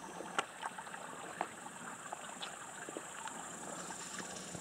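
Faint steady rush of a small stream of flowing water, with scattered light clicks and rustles of brushing through leafy bushes.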